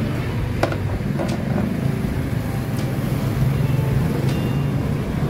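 A few small, sharp metal clicks as cable terminals are fitted to a scooter battery with hand tools, over a steady low hum of motor-vehicle engine noise.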